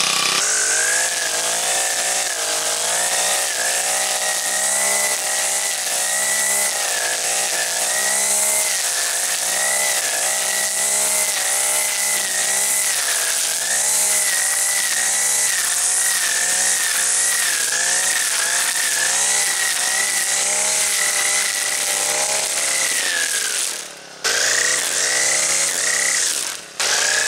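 Knockoff Honda GX50-style four-stroke engine on a kombi string trimmer running at high revs while the string head cuts weeds, its pitch rising and falling with the throttle, over a high whine. The sound dips briefly twice near the end.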